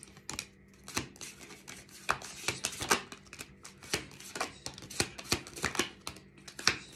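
An oracle card deck being shuffled by hand, cards flicked and slid from one hand onto the other: a quick irregular run of sharp card slaps and rustles, several a second, starting about a second in.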